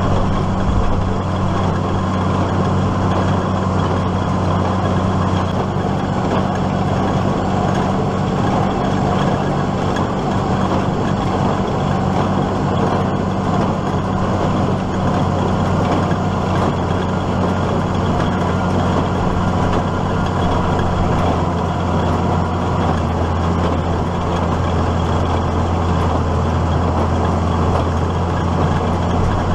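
Case IH Maxxum 5140 diesel tractor running steadily at working speed while powering a New Holland 570 small square baler, an even, unbroken engine drone.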